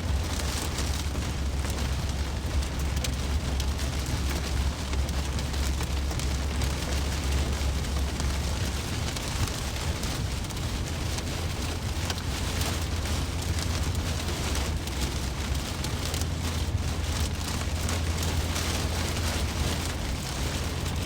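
Steady road and engine noise inside a moving car's cabin: a low drone with a constant hiss of tyres on the road.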